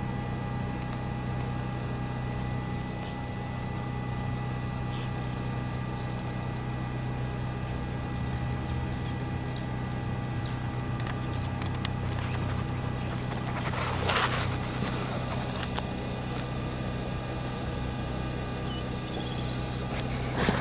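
Cheap portable generator running steadily, charging an RV's battery bank; a brief rush of noise swells and fades about fourteen seconds in.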